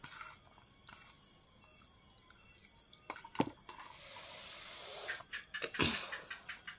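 A person eating at a table: scattered small clicks and two sharp knocks, with a breathy hiss lasting about a second near the middle.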